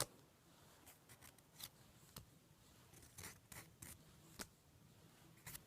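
Faint scattered clicks and light rubbing from plastic graded card slabs being handled, with quiet room tone between.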